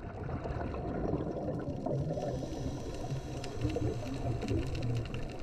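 Underwater sound over a coral reef: a steady low rumble and crackle, with scattered sharp clicks and short wavering tones.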